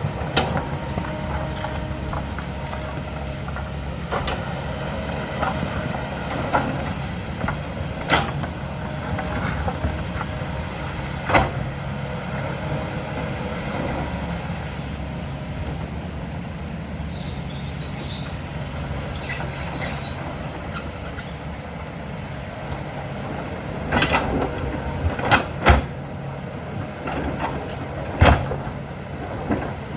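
Diesel engine of a heavy earthmoving machine running steadily under work, with occasional sharp clanks and knocks of the bucket and rock, a cluster of them near the end.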